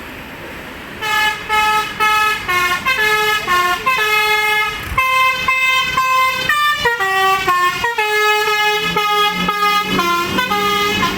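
Telolet basuri multi-tone bus air horn playing a quick tune of short notes that step up and down, starting about a second in.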